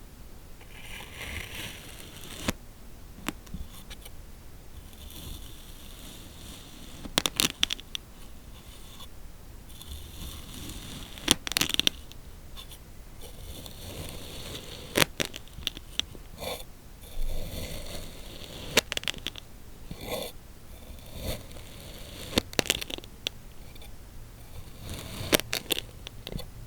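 Kinetic sand being cut and crunched: a soft scraping hiss as a blade works through the packed sand, broken every few seconds by clusters of sharp, crisp crackles.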